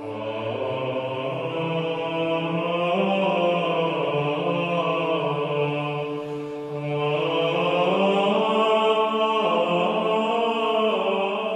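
Slow sacred choral chant: voices singing long, slowly gliding lines over a steady held drone, dipping briefly about halfway through.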